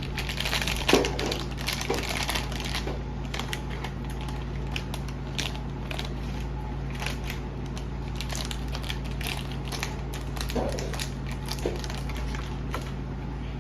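Plastic toy packaging being handled: scattered crinkles and clicks, densest in the first few seconds, over a steady low hum.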